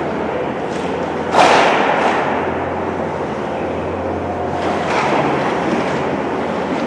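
A sharp thud about a second and a half in, then a weaker one near five seconds, over a steady background din.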